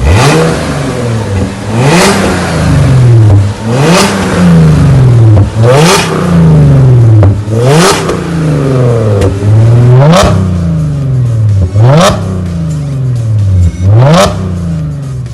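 Audi S5 with an IPE valvetronic exhaust being revved about eight times, roughly every two seconds. Each rev climbs sharply and then falls away more slowly.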